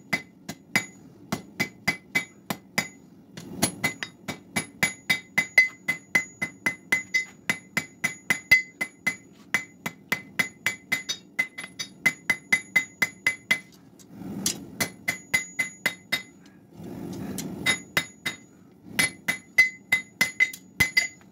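Blacksmith's hand hammer striking a red-hot steel bar on an anvil, about three blows a second, each with a bright metallic ring. The blows come in several runs broken by short pauses.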